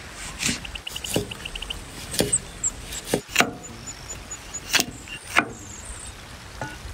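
Heavy cleaver chopping through chunks of raw potato onto a wooden chopping block, giving about seven sharp, unevenly spaced knocks of the blade striking the wood. Short high chirps sound near the start.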